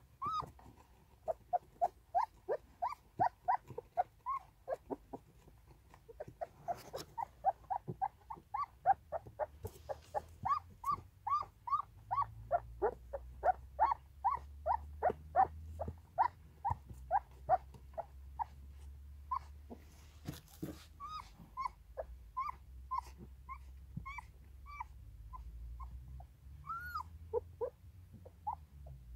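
Young puppies squeaking and whimpering over and over, about two or three short high squeaks a second, while they nurse. A couple of brief knocks come through, and a low rumble runs underneath from about halfway in.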